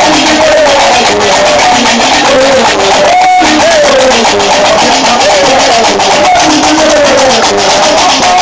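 Live Gnawa music: metal qraqeb castanets clack in a fast, steady rhythm over a bass lute line and a singing voice.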